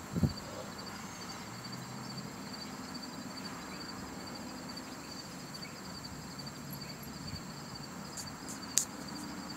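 Quiet outdoor yard ambience: a steady high-pitched pulsing trill and a low hum, with a short thump about a quarter of a second in and a sharp click near the end.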